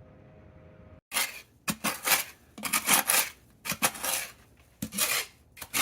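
A faint steady hum, then about a second in a run of loud, irregular clattering and scraping strokes of hard objects against each other, each a fraction of a second long.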